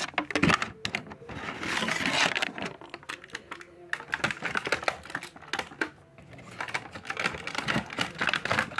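Irregular clicks and crackles of a plastic blister tray and cardboard box being handled as a vinyl Funko Pop figure is packed back into its box.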